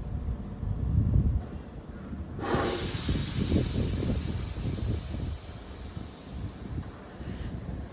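Tobu 8000-series electric train at a standstill: a low rumble swells about a second in, then compressed air vents with a sudden loud hiss that slowly fades, the air-brake or door-engine exhaust of a train at the platform.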